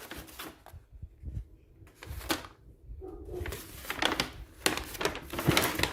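Takeout food containers and packaging being handled and opened: scattered clicks, knocks and rustling, busier in the second half.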